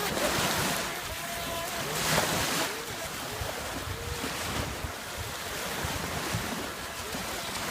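Surf and wind buffeting the microphone, with a couple of louder surges. Under them is the faint whine of an FT007 RC speedboat's electric motor, wavering up and down in pitch.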